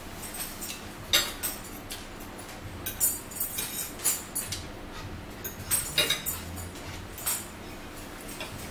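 A fork clicking and scraping against a dinner plate: several sharp clicks spread irregularly over the stretch, the loudest about a second in and again around six seconds in, with lighter rustling between.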